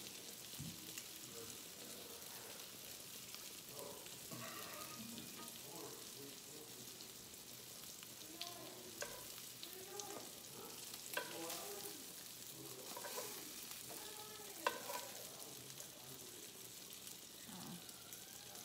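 Sausage patties sizzling steadily in a cast iron skillet, with a few sharp clicks of metal tongs against the pan as the patties are turned and lifted out.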